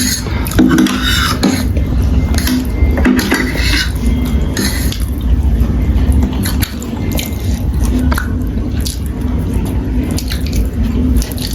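Utensils clinking and scraping against a bowl of noodles while eating, in many short irregular clicks over a steady low hum.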